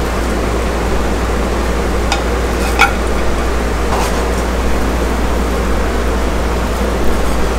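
A steady rushing noise like a running fan, with a few light clicks of a spatula against the pot as cooked chicken pulao rice is scooped out onto a plate.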